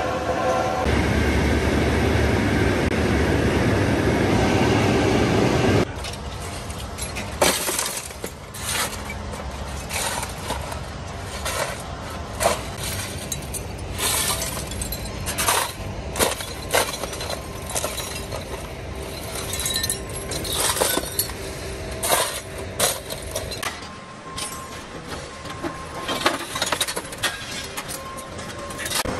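Steady loud rumble of a rolling mill's roller table carrying a red-hot steel bar, cut off about six seconds in. Then irregular clanks and clinks of scrap metal being shovelled into a wheelbarrow and thrown onto a pile.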